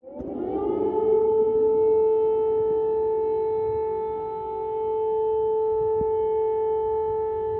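Civil defence air-raid siren starting up, its pitch rising over about a second and then holding one steady, loud wail.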